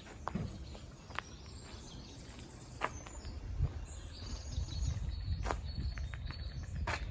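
Outdoor ambience: low wind rumble on the microphone, faint chirps of small birds, and a few scattered sharp clicks.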